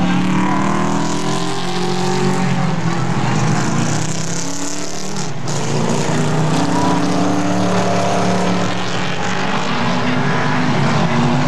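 Super late model stock cars racing on an oval, several V8 engines running together. Their pitches rise and fall as the cars go around and pass.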